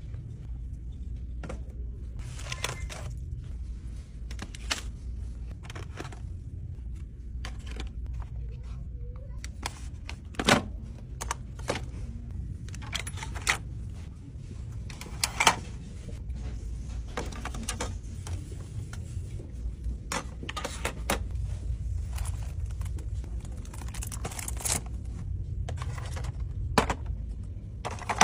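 Plastic toiletry jars and packs being picked up, handled and set into a plastic shopping basket: irregular clicks, taps and knocks, the sharpest about ten and fifteen seconds in, over a steady low hum.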